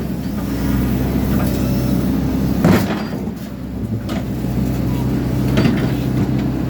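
Excavator's diesel engine running steadily, with metal knocks and scrapes as the machine tears apart a hot water system; the loudest bang comes about two and a half seconds in.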